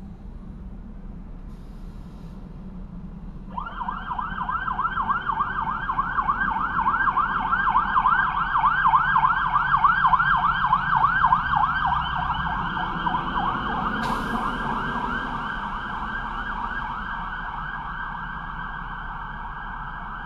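Fire engine siren sounding a rapid yelp, about four sweeps a second, starting a few seconds in over a low engine rumble. It grows louder, then slowly fades as the truck drives away.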